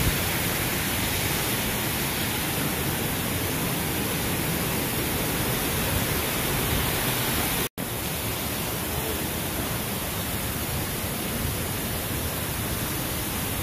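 Steady rushing of water falling over a stepped concrete fountain cascade into a pool. The sound cuts out for an instant about eight seconds in.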